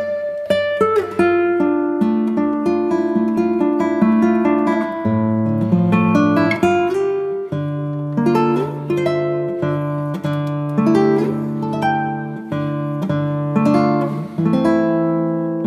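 Background music: a melody of plucked notes on an acoustic guitar over held bass notes.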